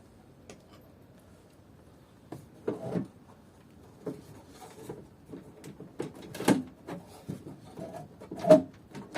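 Irregular clicks and knocks of a hand rivet gun and metal parts being worked while a car window regulator is riveted into the door, starting about two seconds in, with the sharpest knocks about six and a half and eight and a half seconds in.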